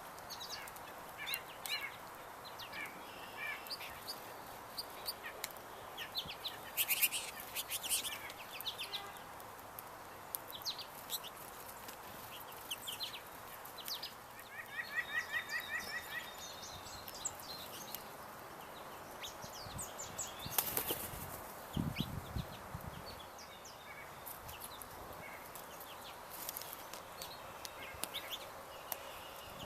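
Backyard birds at a feeder: many short, high chirps and calls, with brief wing flutters as birds come and go. About halfway through there is a quick run of evenly spaced notes.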